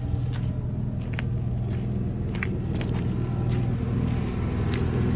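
An engine running steadily with a low hum, with a few small clicks scattered over it.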